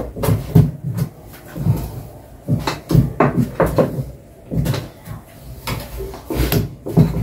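Chapati dough being mixed and kneaded by hand in a bowl on the countertop: irregular dull knocks and thuds, roughly two a second, as the bowl bumps against the counter.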